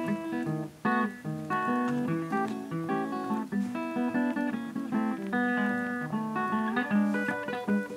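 Background music: an acoustic guitar playing a light melody of plucked notes and strums.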